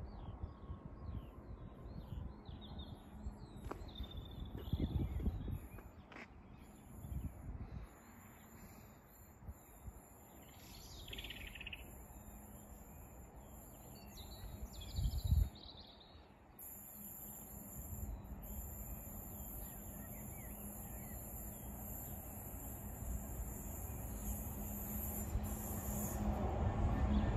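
Small birds chirping outdoors, with a few brief low rumbles in the first half. Over the last ten seconds, the rumble of an approaching DB Cargo class 66 diesel freight locomotive grows steadily louder.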